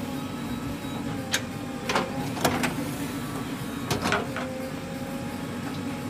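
JCB 3DX backhoe loader's diesel engine running steadily under hydraulic load, with a faint steady whine above the hum. There are several sharp knocks between one and four seconds in as the backhoe dumps its load and swings back to dig.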